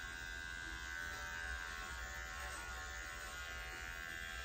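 Electric dog-grooming clippers fitted with a #5 blade, running with a steady buzz as they clip a Scottish Terrier's coat down the side of the neck.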